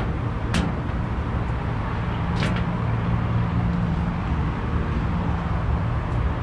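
Steady low hum of rooftop HVAC machinery running, with two sharp clicks about half a second and two and a half seconds in.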